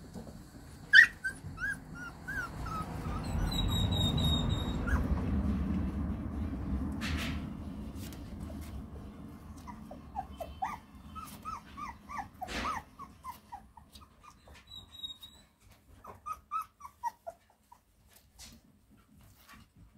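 Young puppies whimpering: runs of short, high whines that fall in pitch, several in quick succession, at the start, in the middle and again near the end. A low rumble swells and fades in the first half, and there are a few sharp knocks.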